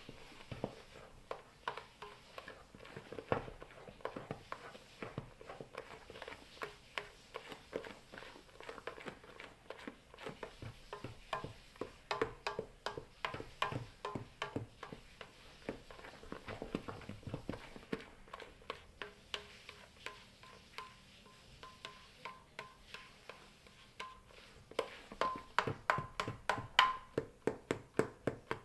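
A mixing utensil beating thick batter by hand in a stainless steel bowl, scraping and clicking against the metal in a steady stroke rhythm. The strokes grow louder and quicker, about three or four a second, near the end.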